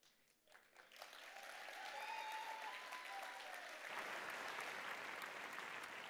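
A large convention audience applauding after the end of a speech. The clapping begins about a second in and builds, and a drawn-out high call from the crowd rises over it about two seconds in.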